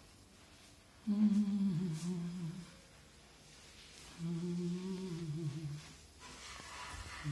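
A person humming a slow tune, two held phrases of about a second and a half each, with short pauses between.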